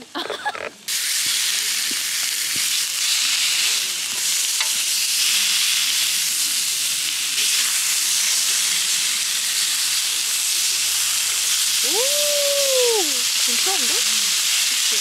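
Pork belly strips sizzling steadily in a grill pan over a wood fire. The sizzle starts abruptly a little under a second in.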